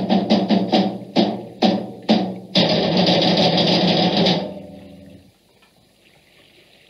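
Instrumental incidental music: a run of short, accented chords, then a held chord that fades away about five seconds in.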